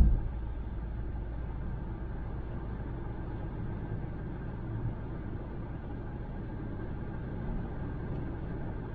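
Steady low rumble of a car cruising at highway speed, mostly tyre and road noise, heard from inside the car.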